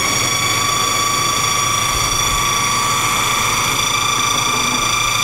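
Food processor running steadily with a high motor whine as its blade chops raw cauliflower florets into fine crumbs.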